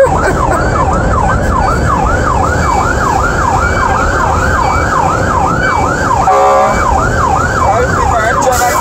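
Fire truck's siren in a fast yelp, its pitch sweeping up and down about three times a second, heard from inside the cab over engine and road rumble. About six seconds in a short, steady horn blast cuts across it before the yelp resumes.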